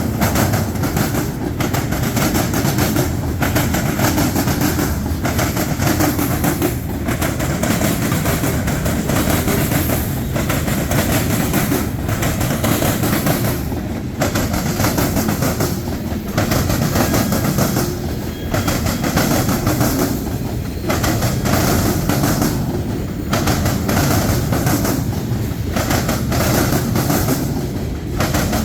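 Norfolk Southern freight train rolling past, its cars' wheels clattering over the rail joints in a steady clickety-clack with short regular gaps.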